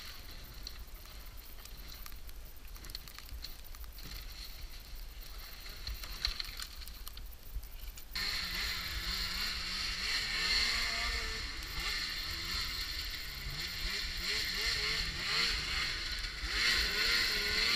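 A low rumble for about eight seconds, then a snowmobile engine revving hard as the sled climbs a steep snow hill, its pitch rising and falling and getting louder near the end.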